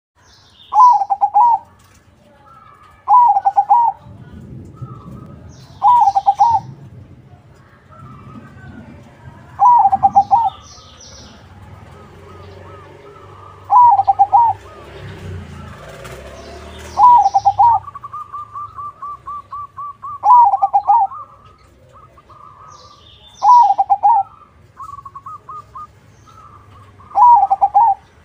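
Perkutut (zebra dove) of the crossing type cooing: nine loud, near-identical coo phrases, one every three to four seconds, with softer rapid repeated notes between some phrases and faint high chirps.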